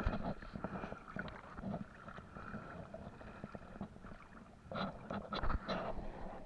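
Water splashing and dripping as a trammel fishing net with its floats is hauled over the side of a small boat, with irregular light clicks and knocks. The splashing gets louder for about a second near five seconds in.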